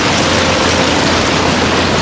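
Crawler bulldozer's diesel engine running steadily under a loud, even mechanical clatter.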